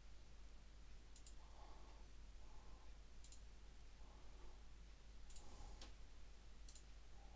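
Faint computer mouse button clicks, about five spread out, several in quick double pairs, over a low steady hiss.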